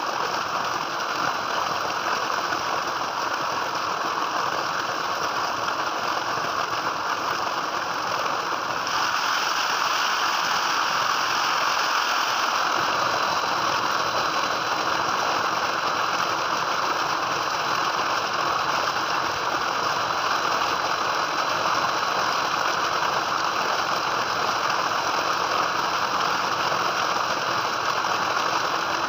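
Water from a tubewell's outlet pipe gushing steadily into a concrete tank, a constant splashing rush. It gets slightly louder about nine seconds in.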